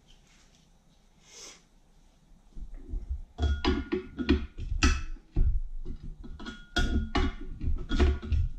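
Vice grips being fitted and clamped onto a Kohler K301 engine's flywheel to stop the crankshaft turning: after a quiet start, a quick irregular run of metal clanks and clicks with a ringing tone, about three a second, begins about three seconds in.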